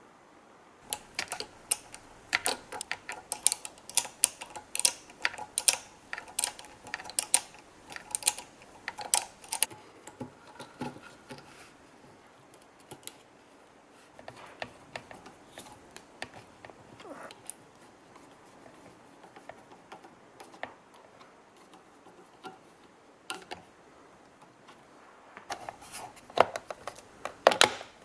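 Irregular sharp clicks and light knocks of small hard parts and tools being handled, dense for the first ten seconds or so, then scattered, with a quick cluster near the end.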